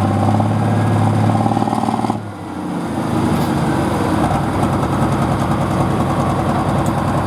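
Diesel engine of a pro stock pulling tractor running steadily at idle. About two seconds in, the sound changes abruptly to another engine idling steadily.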